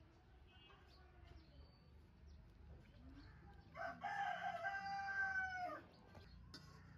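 A rooster crowing once: a single loud call of about two seconds, starting about four seconds in and dropping in pitch at its end, over faint low background noise.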